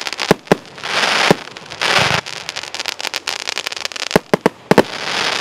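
A 36-shot, 30 mm consumer fireworks cake firing in quick succession. Sharp launch thumps and bangs are mixed with several half-second hissing bursts from the aerial effects.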